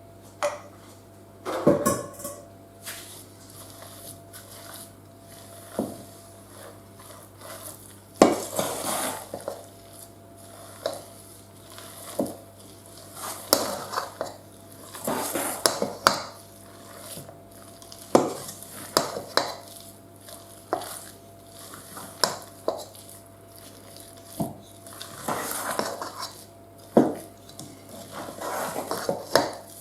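Ladle folding beaten egg whites into cake batter in a mixing bowl, knocking and scraping against the bowl at irregular intervals.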